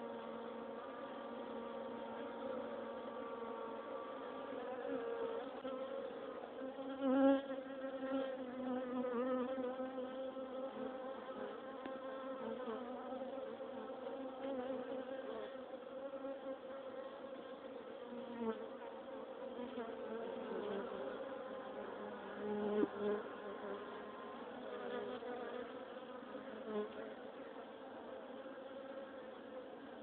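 Honeybees buzzing: a steady, pitched hum of wingbeats with several overtones, briefly louder twice, about a quarter of the way in and again past two-thirds.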